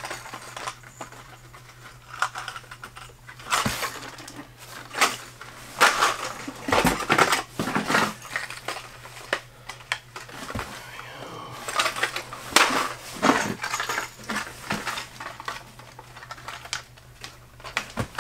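Plastic-packaged fishing lures being rummaged through in a cardboard box: irregular clattering, clicking and crinkling of the blister packs and bags as they are shuffled and lifted out.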